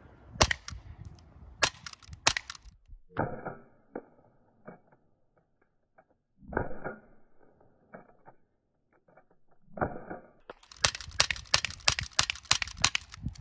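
Umarex Glock 19X CO2 blowback airsoft pistol firing: a few sharp single shots at first, softer knocks in the middle, then a fast string of shots near the end as the magazine is emptied.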